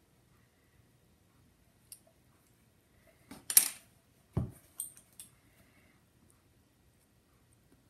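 A small pin tool clatters down onto the work table, then an unfired porcelain mug is laid on its side on the table with a dull thump, followed by a few small clicks as it is handled.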